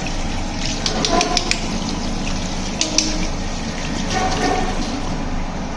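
Steady rush of running water, with a few small clicks and knocks about a second in and again near three seconds.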